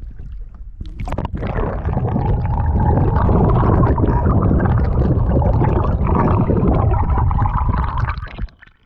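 Water rushing and gurgling past an action camera dunked underwater beside a moving canoe's hull, a loud muffled churning that starts about a second in and cuts off near the end as the camera surfaces.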